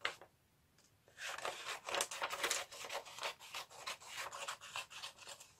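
Scissors cutting a sheet of paper into strips, a rasping rustle of blade and paper that starts about a second in and goes on in short uneven strokes.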